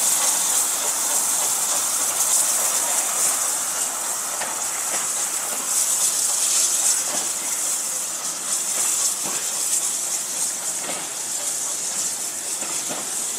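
Steam locomotive hissing steadily as it passes beneath, its carriages rolling after it. Scattered clicks of wheels on the rails start about five seconds in, and the hiss fades slightly toward the end.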